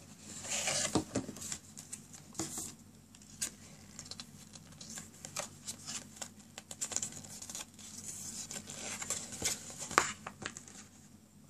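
Cardboard puzzle box and a folded paper leaflet being handled: rustling, sliding and crinkling of paper and card with scattered light clicks, and one sharp snap near the end.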